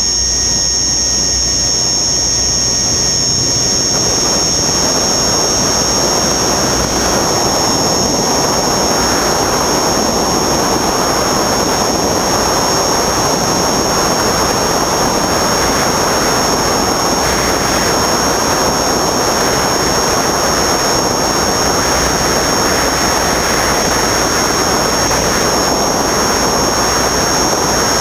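Radio-controlled helicopter in flight, heard from its onboard camera: a steady high whine from the running power plant and rotor over a broad rush of air noise, which grows stronger about four seconds in.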